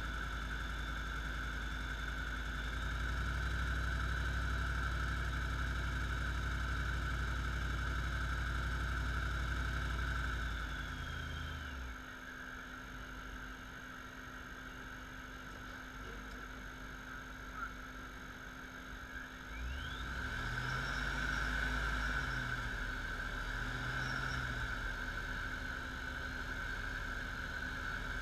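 Supercharged 6.1-litre Hemi V8 of a Vortech-blown 2008 Jeep SRT8 running steadily in drive under load at around 1200–1800 rpm, where the owner hears a ticking he cannot place and doubts is the engine itself. About eleven seconds in the load drops off as it goes to neutral and park and it settles to a quieter idle. A single click follows, then the engine is revved twice with a rising whine.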